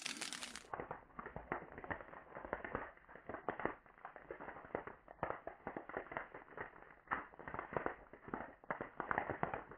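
Faint, dense, irregular crackling and ticking throughout, with no single loud shot. Its high end drops away less than a second in, leaving it duller.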